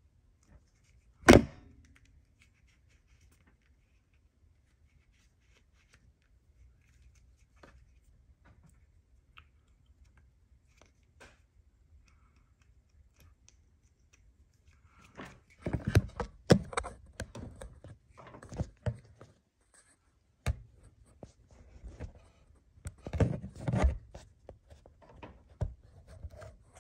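Hard objects being handled: one sharp knock about a second in, then scattered faint clicks and, later, two spells of knocking and rattling.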